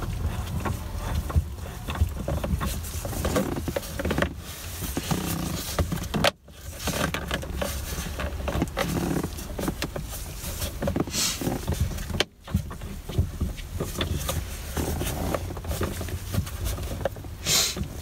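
Hands working at the steering column: clicks, knocks and rattles as the steering hub's 14 mm nut is threaded back onto the shaft, over a steady low rumble, with two short hissing bursts near the middle and near the end.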